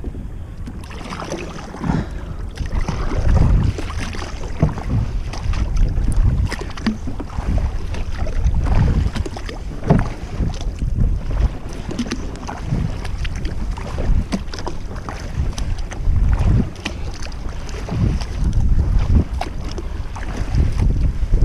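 Wind buffeting the microphone in a heavy low rumble, with water slapping and splashing against a Malibu plastic kayak hull in irregular knocks.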